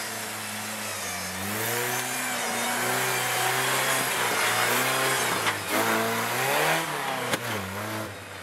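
Lifted Jeep YJ's engine revving hard, its pitch rising and falling several times under throttle, with a hiss of tyres spinning in loose dirt. A sharp knock comes near the end.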